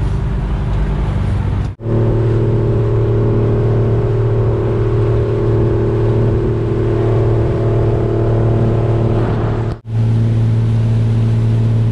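Passenger bumboat's inboard engine running steadily underway, a loud, even hum with a low drone. The sound cuts out sharply twice for a moment, about two seconds in and near the end.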